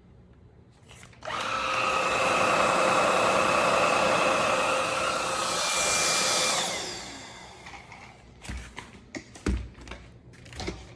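VICSONIC cordless stick vacuum's brushless (BLDC) motor switches on about a second in and runs with a steady whine for about five seconds, then is switched off and winds down with a falling pitch. A few sharp plastic clicks and knocks follow near the end.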